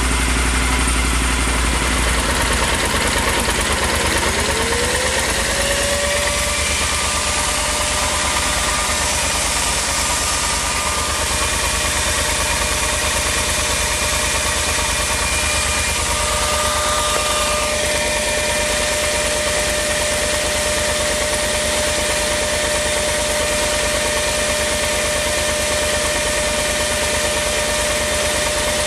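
Yamaha XT1200Z Super Ténéré's parallel-twin engine idling steadily after a successful hard start. A thin whine rises in pitch about four seconds in, then holds.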